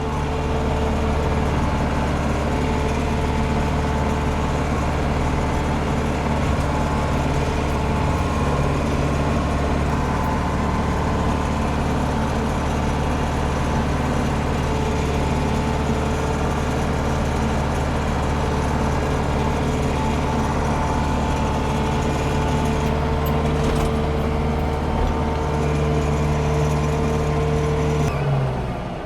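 Landini Blizzard 65 tractor's diesel engine running steadily under load, driving a Taarup flail mower through the PTO, heard from inside the cab. About a second before the end the sound drops and falls in pitch as the engine is throttled back.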